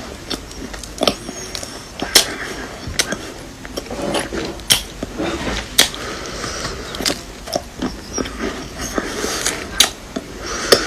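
Brittle chalk and dried clay pieces being crushed and snapped: sharp cracks about once a second between softer crumbling crunches.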